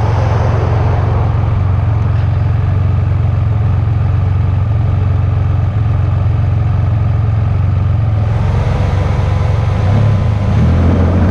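A loud, steady low rumble. About two-thirds of the way through, a higher hiss joins in, and the rumble grows louder near the end.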